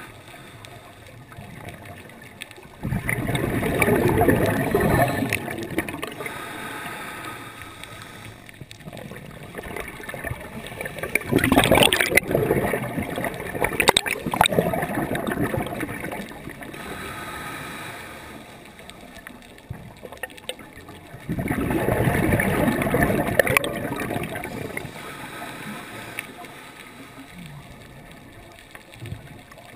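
Scuba diver's exhaled bubbles gurgling past an underwater camera in three bursts of a few seconds each, roughly nine seconds apart, with a low water hiss between them.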